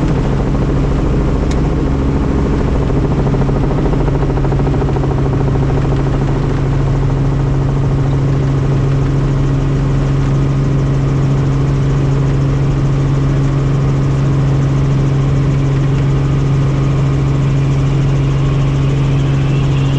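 Helicopter running with a steady, unchanging drone: a constant low hum over the even rush of engine and rotors.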